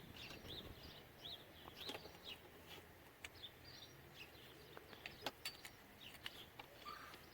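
Faint background birds chirping in short, repeated calls, with a few light clicks scattered through, about five seconds in.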